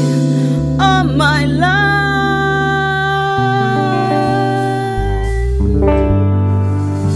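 A band playing a song: a lead melody holds long notes that bend and waver, over guitar and a steady bass line.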